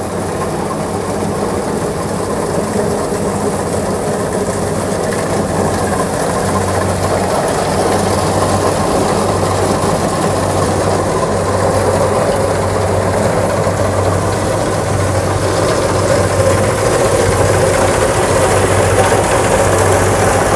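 Kubota DC70 combine harvester running close up, its diesel engine and threshing machinery going at a steady, unchanging pitch.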